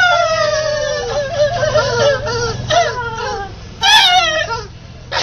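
Men's voices imitating fireworks: several high-pitched wails overlap and slide slowly downward like falling firework whistles, with a short, loud hissing burst about four seconds in.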